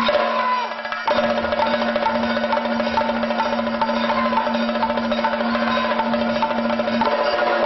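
Live Kathakali stage music: fast, dense drumming with regularly spaced strokes, over a held steady tone that comes in about a second in and drops out near the end.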